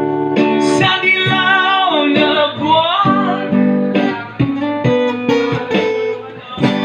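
Live acoustic guitar strummed under a singer holding a wordless, wavering vocal line in a Filipino pop ballad.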